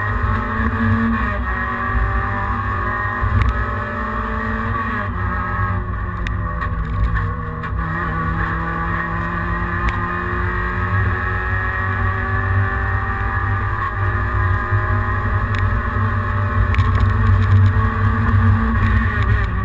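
Peugeot 106 rally car's engine heard from inside the cabin at full stage speed, the revs climbing through long pulls and dropping back at gear changes over a heavy low rumble of drivetrain and road noise. It gets louder near the end.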